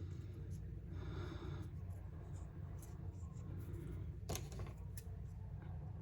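Hands handling paper and craft pieces: soft paper rustling with two sharp clicks, about four and five seconds in, over a steady low hum.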